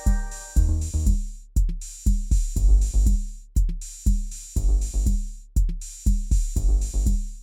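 Instrumental music: a steady drum beat with kick drum and bass notes, about two hits a second, and no singing.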